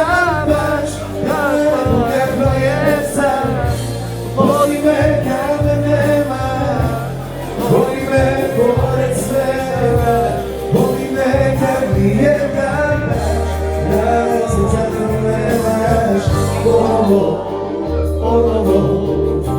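Live band music: a wavering lead melody with vibrato over a steady, sustained bass line.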